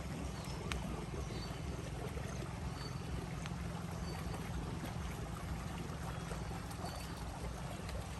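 Steady wash of flowing water at a swimming pool, with a low rumble underneath. A few faint, short, high chirps stand out here and there.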